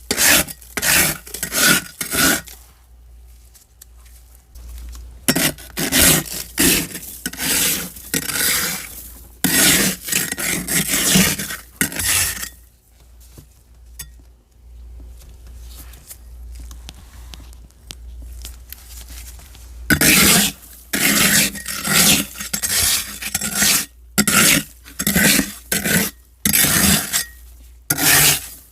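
Frost being scraped off the inside walls of a deep freezer, in runs of short scraping strokes about two a second, with pauses of several seconds between the runs.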